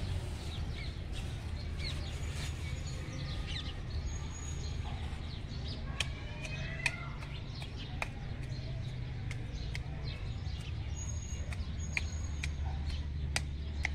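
Small birds chirping and calling in short, quick notes, with a few sharp clicks from a hand tool working the soil and a steady low hum underneath.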